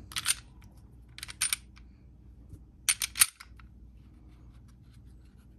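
Taurus G2C 9mm pistol's slide being worked by hand: sharp metallic clicks in three short clusters, the loudest about three seconds in.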